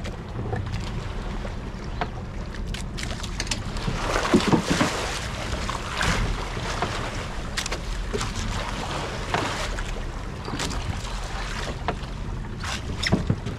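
Water sloshing against a small boat's hull at sea, with wind on the microphone and scattered clicks and knocks, a cluster of them about four seconds in and again near the end.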